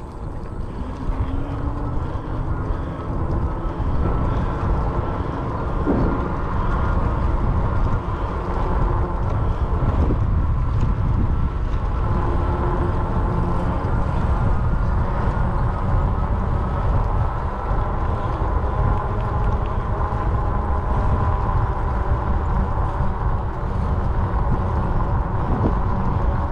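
Riding noise from a RadRover 5 fat-tire electric bike: a heavy, steady low rumble of wind on the microphone, with a faint steady whine and hum over it.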